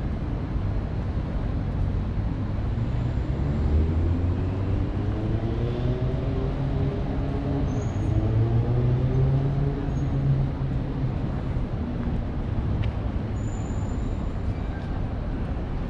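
A road vehicle's engine accelerating past, its pitch rising for several seconds, over a steady low rumble of city traffic.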